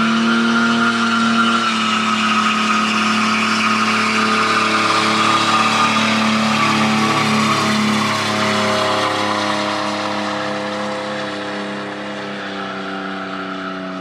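Ford Mustang doing a burnout: the engine is held at high revs at a nearly steady pitch while the spinning rear tyres squeal. The sound tapers off somewhat after about eight seconds.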